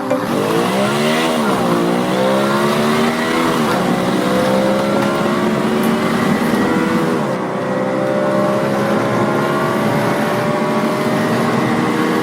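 Toy remote-control vehicle running: a loud engine-like whine that dips and climbs in pitch. It drops sharply twice, then climbs slowly again each time.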